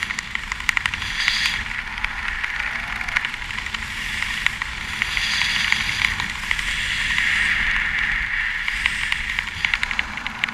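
Wind rushing over a helmet camera's microphone during descent under an open parachute: a steady rushing hiss with rapid crackling flutter that swells and eases every few seconds.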